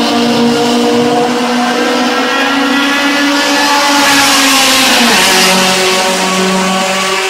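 Racing hatchback's engine at full throttle passing close by: its note climbs slightly as it approaches, then drops in pitch as it goes past about five seconds in, and carries on at the lower pitch.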